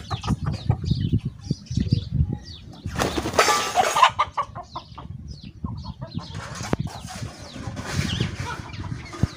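Chickens and roosters scuffling, with wings flapping and some clucking. The loudest flurry of flapping comes about three seconds in, with more scattered bursts later.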